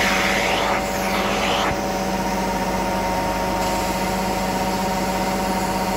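Carpet extraction machine's vacuum motor running with a steady whine over a constant rush of air. In the first two seconds the rush swells and fades twice, as the suction changes.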